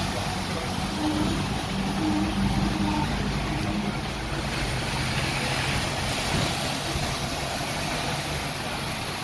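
Hong Kong double-decker tram running along its street tracks, heard from on board, with road traffic and bus engines around it: a steady rumble, with a low engine hum in the first few seconds.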